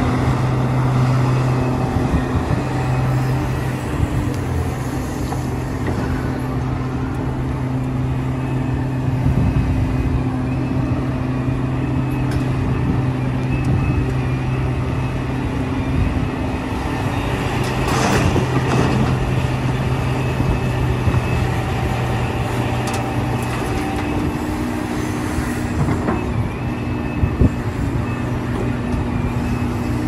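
Large Liebherr R 976 crawler excavator working, its diesel engine running steadily at a constant low note. A few short sharp noises rise above the engine, the clearest about eighteen seconds in.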